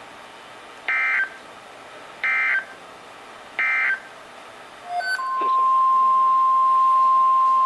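Emergency Alert System SAME header: three short bursts of warbling data tones about a second and a half apart. About five seconds in, a steady single-pitch NOAA Weather Radio 1050 Hz alert tone begins and keeps sounding.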